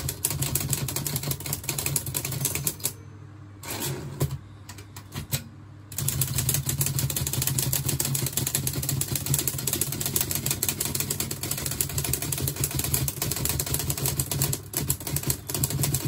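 Olivetti Lettera 25 manual portable typewriter being test-typed after its type slugs were cleaned: rapid clatter of keys and typebars striking the platen. The typing breaks off briefly about three seconds in, resumes in short bursts, then runs fast and continuous from about six seconds on.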